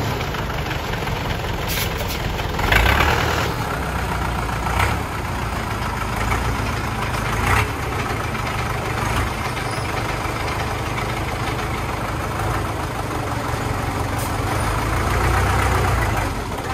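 Diesel engines of a homemade three-wheeled dump truck running steadily with a knocking clatter while its bed is tipped up to unload soil, with a few brief louder moments about three, five and seven and a half seconds in.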